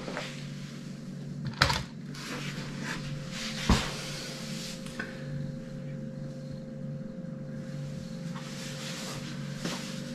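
Handling noise as a plastic Lego Technic model tractor is turned and moved about: two sharp knocks, about a second and a half and nearly four seconds in, among fainter rustles, over a steady low hum.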